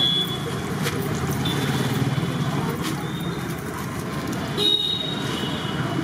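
Steady roadside traffic rumble with several short, high vehicle-horn toots, over battered fritters sizzling in a large kadai of deep-frying oil.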